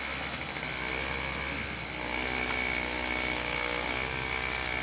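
An engine running steadily at a fairly constant speed, with a high whine over it.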